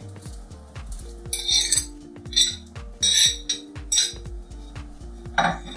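Metal utensil scraping and clinking against a plate in a few short bursts as shredded chicken is pushed off it into a slow cooker, over background music with a steady beat.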